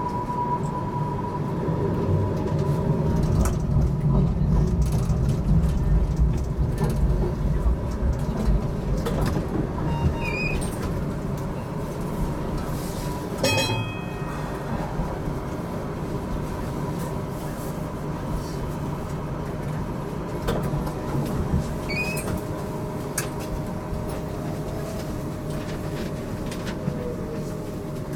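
HTM GTL8 tram running, heard from on board: a steady low rumble of the wheels on the rails, heaviest in the first several seconds, with scattered clicks and knocks from the track. A falling whine comes near the end.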